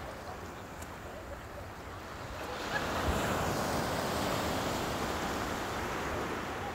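Small waves breaking on a sand-and-shingle beach. The surf swells about two and a half seconds in and slowly eases, with wind buffeting the microphone.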